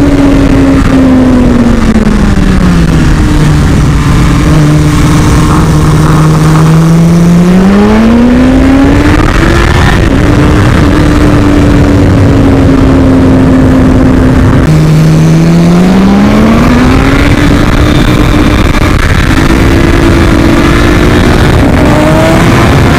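BMW S1000RR inline-four sport-bike engine heard from the rider's seat over steady wind rush. Its note falls away as the bike slows in the first few seconds, holds low, then climbs and runs steady at high revs. About 15 s in it drops sharply at a gear change and climbs again.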